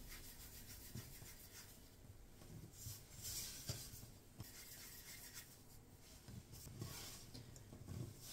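Faint rubbing and brushing of floured hands rolling small pieces of dough into balls on a wooden pastry board, with a few light ticks.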